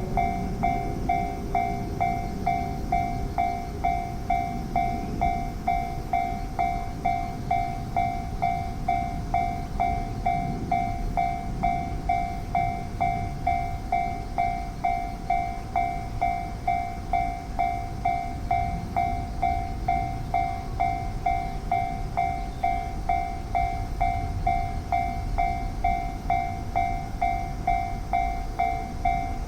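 Japanese level-crossing warning bell ringing steadily at about two strokes a second, with the low rumble of a passing train underneath.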